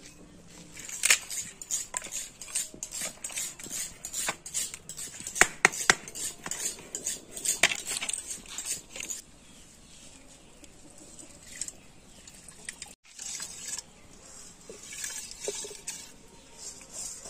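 Firewood cracking and knocking at a wood fire under a clay pot, as sharp irregular clicks. About two thirds in, rice is scraped off a steel bowl into water in the pot: light metal scraping with the grains pattering.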